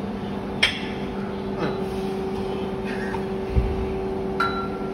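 Iron dumbbells clinking against the metal rack a few times as they are lifted off, one clink ringing briefly, with a low thud about three and a half seconds in, over a steady background hum.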